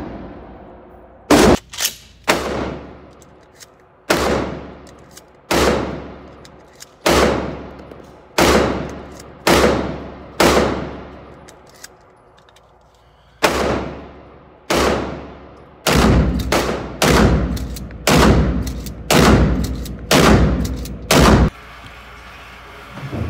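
A string of 12-gauge shotgun shots firing 3-inch slugs, each a sharp blast with a long echoing tail in an indoor range. The shots come about one to one and a half seconds apart, pause for about three seconds around the middle, then quicken into a faster string near the end.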